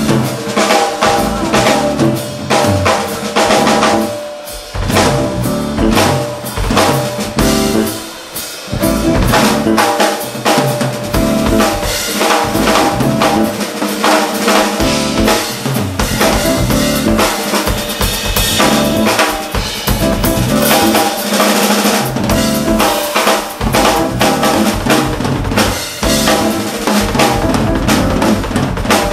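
Live band playing with the drum kit to the fore: steady bass drum, snare and rimshot strokes over bass guitar and keyboard.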